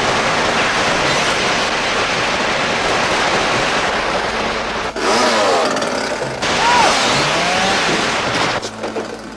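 Film soundtrack of a shootout: a chainsaw engine running and submachine-gun fire in a dense, loud mix. About five seconds in, yells rise over it after a sudden cut, and the noise drops away near the end.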